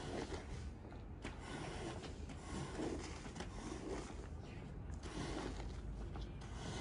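A shovel-style scraper blade dragged in repeated strokes over a soaked, sudsy rug, pushing off foamy dirty water with a wet scraping and squelching sound.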